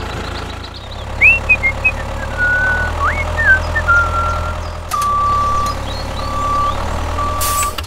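Steady low hum of a truck engine running, with a few short rising and falling whistled chirps in the first half. About five seconds in come three long beeps at one steady pitch, like a reversing alarm.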